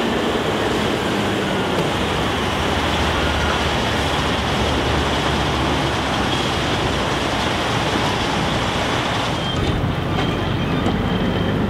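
Heavy-duty tow truck's diesel engine running steadily with the old semi tractor hitched to its under-lift boom. The sound shifts near the end as the wrecker pulls away towing the truck.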